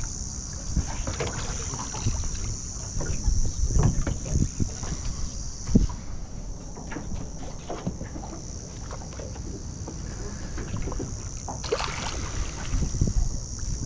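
A landing net splashes into the water about twelve seconds in as a small fish is netted beside the boat. Under it run a steady high insect drone, the low rumble of wind and handling on the microphone, and a single sharp knock about six seconds in.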